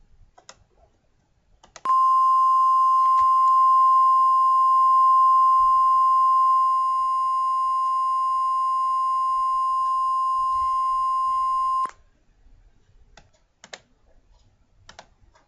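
Emergency alert attention tone: a single steady electronic beep pitched near 1 kHz, held for about ten seconds. It starts about two seconds in and cuts off sharply. A few faint clicks come before and after it.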